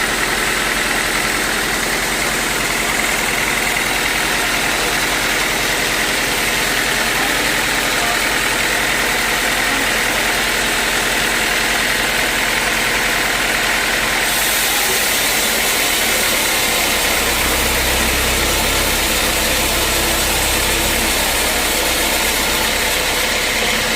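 Sawmill machinery running steadily, an engine-like drone. The high hiss grows stronger about fourteen seconds in, and a low hum joins for a few seconds after.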